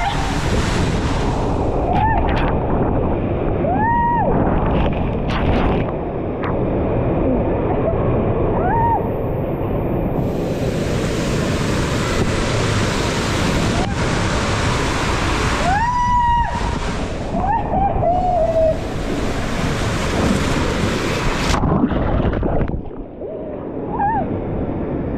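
Water rushing and sloshing loudly under an inner tube as it slides down an enclosed water-slide tube, with a few short rising-and-falling high sounds over it. Near the end the rush cuts off as the tube runs out into the splash pool.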